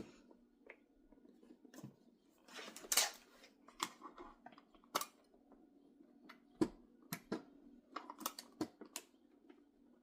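Hard plastic clicks and knocks as the dust compactor bin and release buttons of an iRobot Roomba Combo robot vacuum are pressed and handled, with a brief scraping rustle about three seconds in. A faint steady hum runs underneath.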